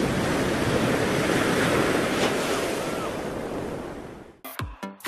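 Ocean surf: a steady wash of breaking waves that fades out about four seconds in. Music with a steady beat starts just before the end.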